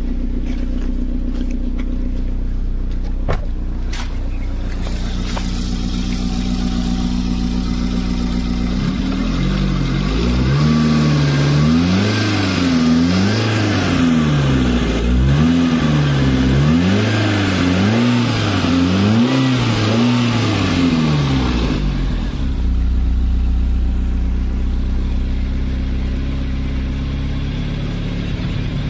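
Chevrolet Spark petrol engine idling, then revved up and down about once a second for roughly thirteen seconds at the throttle before settling back to a steady idle. The engine is running with its freshly cleaned, carbon-cleared EGR valve refitted.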